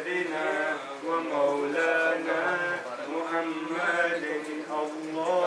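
Men's voices chanting salawat, devotional blessings on the Prophet Muhammad, in long held melodic phrases that slide between notes.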